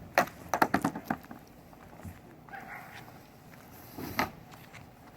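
A quick run of sharp knocks and clatters lasting about a second, with another knock near the end: a kayak and its tie-down straps being handled while it is readied for lifting onto the roof rack.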